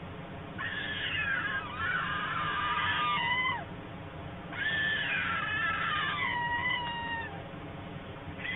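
Young white storks calling from the nest: two long, drawn-out calls of about three seconds each, wavering in pitch and falling away at the end.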